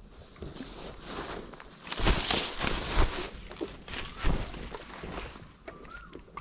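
Footsteps through dry grass close by: a rubber boot crunching and rustling the dry stalks, with three heavier steps about two, three and four seconds in.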